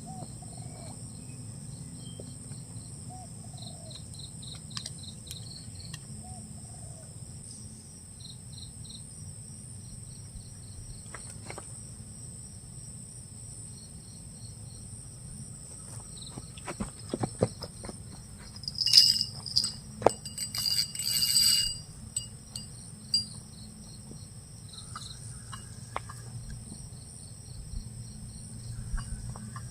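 A steady chorus of insects with two high, unbroken drones and short trains of rapid chirps in the first seconds. About halfway through, a cluster of loud knocks and rustling close by lasts several seconds.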